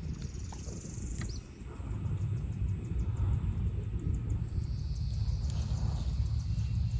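Wind rumbling on the microphone, a steady low buffeting, with faint high ticking and a thin high buzz joining about four and a half seconds in.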